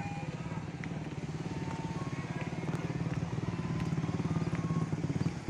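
Small motorcycle engine running steadily at low speed, a fast, even throb of firing pulses that grows gradually louder.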